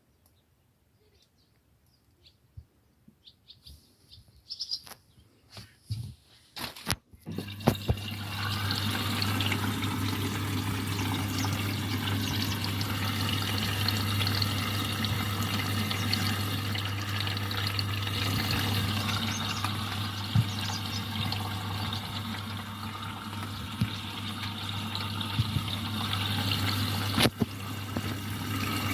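Indesit EcoTime washing machine starting its fill: a few clicks and ticks, then about seven seconds in the water inlet valve opens with a steady hum and water rushes into the drum.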